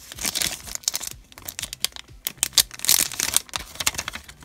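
Clear plastic bag crinkling as it is opened and puffy stickers are pulled out of it, in two spells of crackly rustling, the second about two and a half seconds in.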